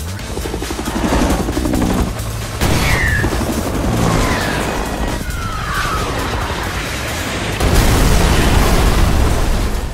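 Action-film soundtrack: music mixed with helicopter and explosion effects. A few short falling whistles sound in the middle, and a louder blast of noise comes near the end.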